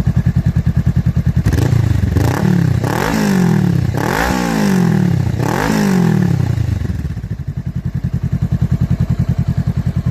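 Honda Rebel 500's parallel-twin engine breathing through a short Diablo Super Shot slip-on exhaust. It idles with an even, lumpy pulse, is revved up and let fall several times in quick blips from about a second and a half in, then settles back to idle.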